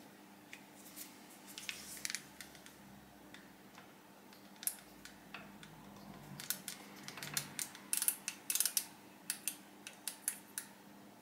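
Small sharp clicks and ticks of an outside micrometer being handled and closed on a machined part to check its thickness. The clicks are scattered at first and come thick and fast in the second half, over a faint steady hum.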